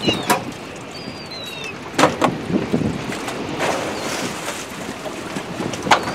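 A few sharp knocks and clinks of gear being handled at a hand winch and its hook and cable: one just after the start, two close together about two seconds in, one near the end. Under them runs a steady outdoor hiss of wind and water.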